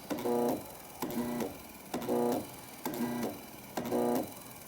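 Washing machine control board running its agitation cycle, switching the drive back and forth: a click, then a humming buzz of about half a second, repeating about once a second and alternating louder and softer.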